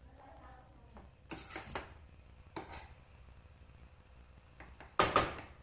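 A spoon scraping and clinking against the inside of a stainless steel pressure cooker as cooked rice and dal are stirred. There are three short scrapes, and the last one, near the end, is the loudest.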